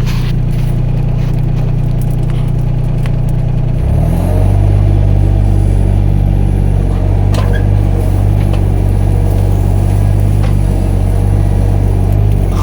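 Mini excavator's diesel engine running steadily with a low hum. About four seconds in its note shifts and it grows louder, then holds at the new level.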